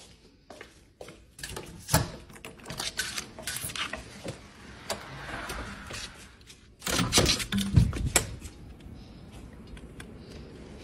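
House door and storm door being unlatched and pushed open: a run of clicks and knocks, then a louder clatter with thumps about seven to eight seconds in. After that a steady hiss of wind outdoors.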